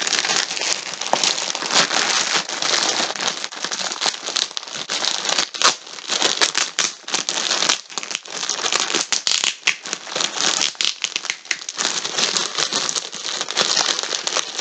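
Plastic packaging of a multi-ball yarn pack crinkling and rustling as it is handled, a dense, irregular crackle that goes on without a break.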